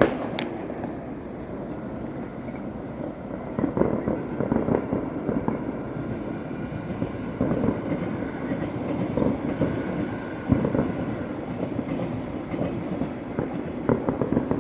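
A dense barrage of distant fireworks going off together as a steady rumbling crackle, many small pops running into each other, with a few louder bangs standing out, the biggest about ten seconds in.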